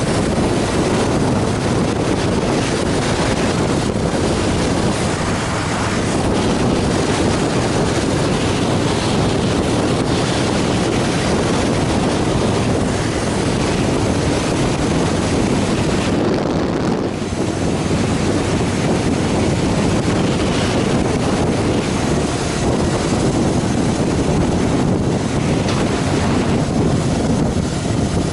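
Steady wind rush on the microphone of a Harley-Davidson Fat Boy Lo riding at speed, mixed with the motorcycle's V-twin engine running. The level dips briefly about seventeen seconds in.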